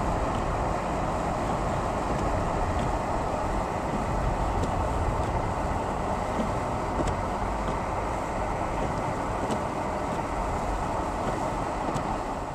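Steady road noise of a car driving, an even rushing sound with no sharp events.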